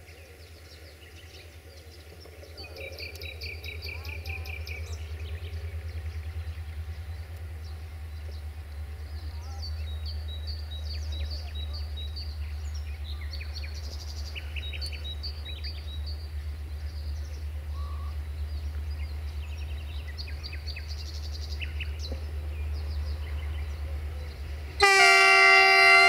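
Diesel locomotive of a passenger train approaching with a steady low rumble that grows louder, birds chirping over it. About 25 seconds in, the locomotive's air horn starts a loud, held, multi-tone blast.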